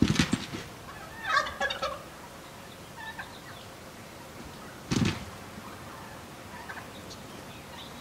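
Gould's wild turkey toms gobbling, with three loud gobbles (at the start, about a second in, and about five seconds in) and fainter calls between them.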